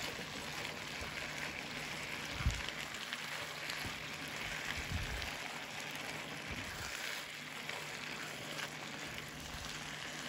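Chicken and vegetable filling, with sour cream stirred in, sizzling steadily in a frying pan as its moisture cooks off. A few low thumps about two and a half, five and near seven seconds in.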